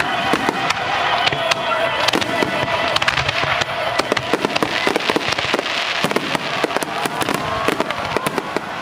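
Fireworks going off in quick succession: a dense, continuous crackling of many small bursts.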